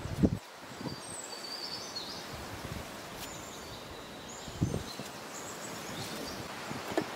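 Outdoor orchard ambience with small birds chirping now and then, and a few dull thumps, the loudest just after the start, from handling while a potato is peeled with a knife.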